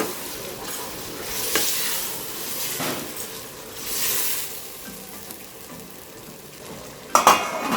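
Stew frying and sizzling in a pot as it is stirred, the sizzle swelling every second or two. Near the end there is a loud, ringing clatter of metal on the pot.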